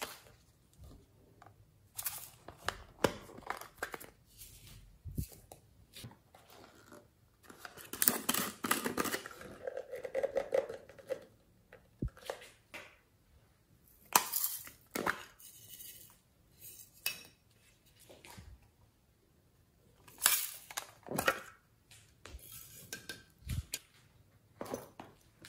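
Glitter being tipped and tapped out of small plastic pots into a glass bowl of slime: irregular sharp clicks and clinks of plastic against plastic and glass, with a denser run of clicks and rustling about a third of the way in.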